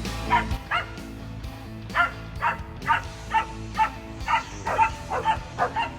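A dog barking in short, high yips, about two a second after a brief pause, over background music.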